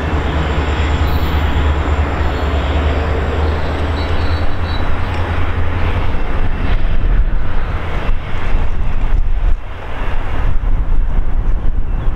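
VIA Rail F40PH-2 diesel locomotives pulling a passenger train away, with a steady low engine drone. From about halfway it turns to a rougher, uneven rumble mixed with wind buffeting the microphone.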